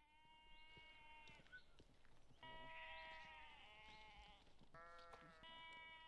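Lambs bleating faintly: about four long, steady bleats, two of them overlapping in the middle.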